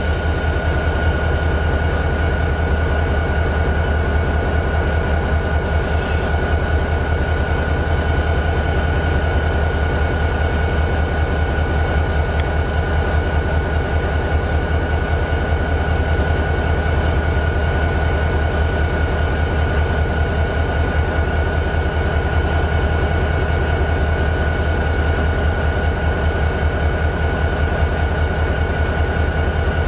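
EMD 645 diesel engine of a GP40-2 locomotive, a turbocharged 16-cylinder two-stroke, idling steadily with a fast, even pulse and a steady high whine over the rumble.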